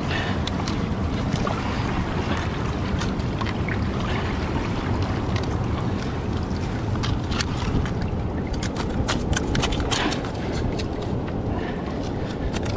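Steady wind and surf noise on the microphone, with scattered sharp clicks and scrapes of a steel chisel against mussel shells and rock as giant mussels, held by very tough byssal threads, are pried and twisted off. The clicks come thickest in the second half.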